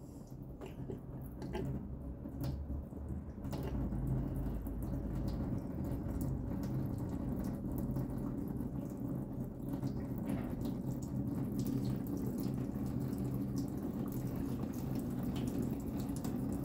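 Engine coolant pouring from the radiator's hose port into a drain pan, a steady splashing stream of liquid that swells over the first few seconds and then runs on evenly.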